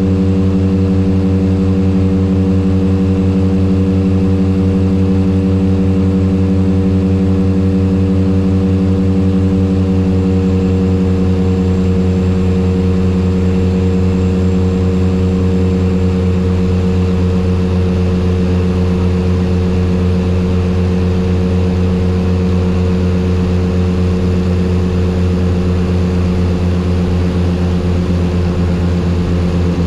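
Turboprop aircraft engines and propellers on final approach, a steady deep drone with a strong low hum that holds its pitch.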